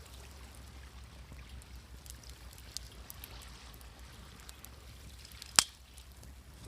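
Wood fire crackling, with scattered small pops and one loud, sharp pop about five and a half seconds in, over a steady low rumble of waves.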